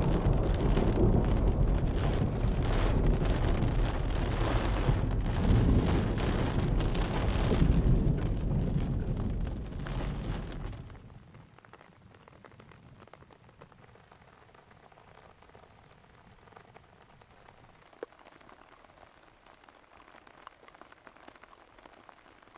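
Heavy rain pouring down with thunder rumbling deep underneath. About eleven seconds in it drops away sharply to a faint, steady hiss of light rain, with a single short click a few seconds later.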